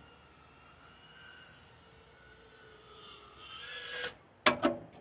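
Meteor65 Pro brushless tiny whoop drone's motors and propellers whining faintly as it flies back in to land, growing louder near the end and cutting off abruptly, followed by a few sharp clicks.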